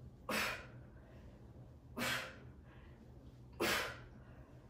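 Three sharp breaths out, one on each twist of the dumbbell, evenly spaced about a second and a half apart: a person exhaling hard with the effort of Russian twists.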